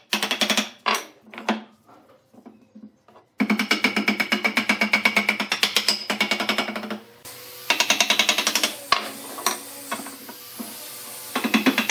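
Small wooden mallet knocking on a wooden chair frame and slats in quick runs of taps, about seven a second. The runs are broken by short pauses and a few single knocks.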